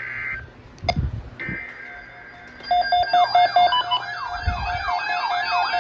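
NOAA weather radio receiving an EAS alert: warbling digital header bursts, then about halfway through several weather-radio alarms start together, a pulsing beep under a rising-and-falling siren tone repeating about three times a second. A sharp click about a second in and a dull thump near the middle.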